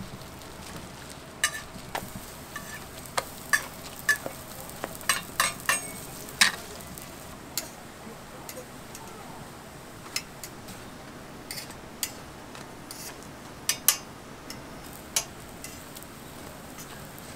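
Hotteok sizzling on a flat steel griddle, with frequent sharp, irregular clicks of metal tongs tapping and scraping the griddle as the pancakes are turned and moved.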